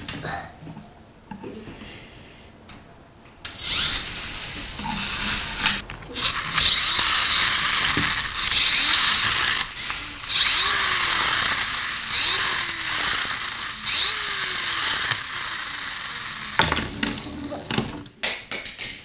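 Coin-battle toy car's pull-cord gear mechanism ratcheting and whirring in a series of surges. It starts about three and a half seconds in and stops near the end.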